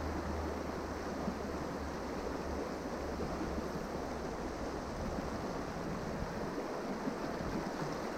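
Steady rush of a fast-flowing river's current, with a low wind rumble on the microphone in the first few seconds.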